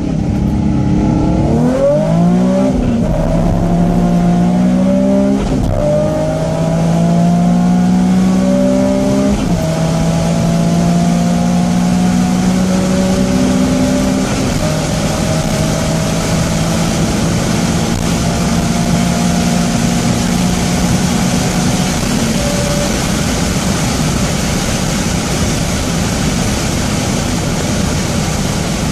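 Nissan 350Z's VQ35 V6 under hard acceleration, heard from inside the cabin. The engine note climbs slowly in pitch and drops at each upshift, several times in the first half. Later the engine tone fades into a growing steady rush of wind and road noise.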